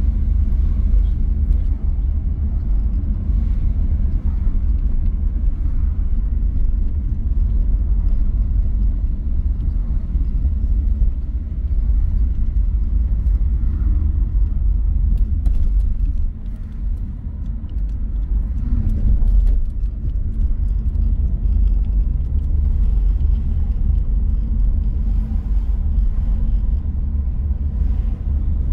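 A car driving along a road: a steady low rumble of engine and road noise, dipping briefly a little past the middle.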